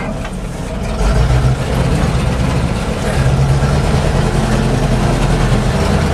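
Engine of a Soviet military all-terrain truck running steadily as the truck drives over a rough, bumpy dirt track, heard from inside the cab; the engine gets louder about a second in. The truck sounds as if it has no exhaust silencer.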